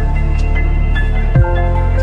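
Ambient electronic background music: held synth notes over a steady bass, with a deep falling bass sweep about one and a half seconds in.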